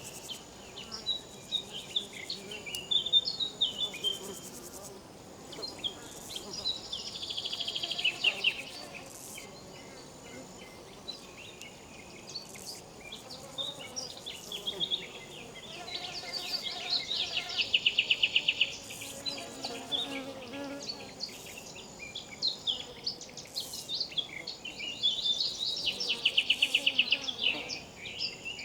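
Riverside insects calling: rapid pulsed trills in bouts that come every several seconds, over a thin steady high whine.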